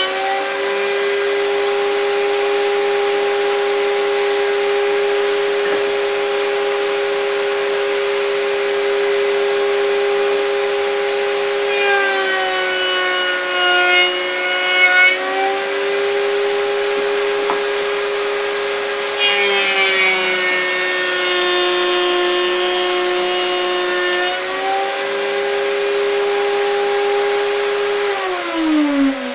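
Router in a homemade router table running at speed with a steady whine, its pitch dropping twice as a wooden board is fed through the bit, then winding down near the end. A vacuum cleaner hooked up for dust extraction runs steadily underneath.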